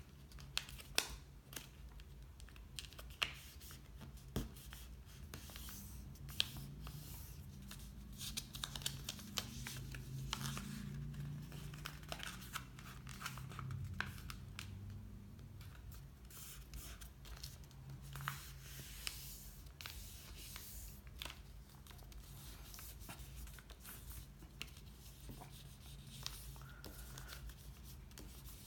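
A sheet of paper being folded by hand into a paper airplane: faint rustling and crinkling with scattered sharp taps and scrapes as the creases are pressed flat, over a low steady hum.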